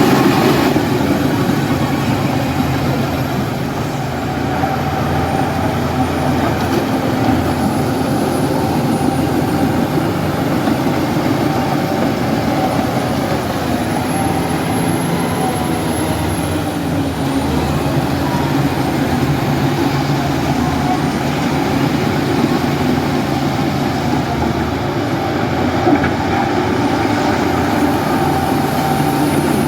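Heavy diesel machinery engine running steadily and loudly, with a constant low engine note throughout.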